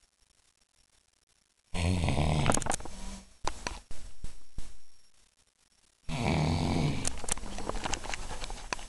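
Loud snoring: two long snores with crackling clicks in them, the first starting about two seconds in and lasting about four seconds, the second starting about six seconds in.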